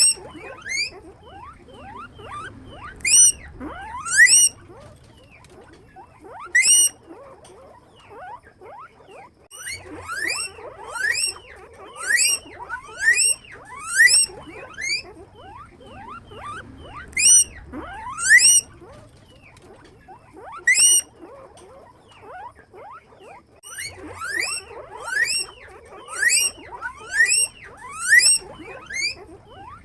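Guinea pig wheeking: loud, high-pitched squeals that rise in pitch, repeated about once a second in runs, with short pauses between the runs.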